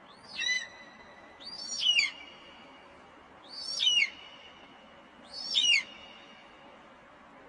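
Eagle calling four times, evenly spaced, each a high scream sliding down in pitch, over a steady faint hiss.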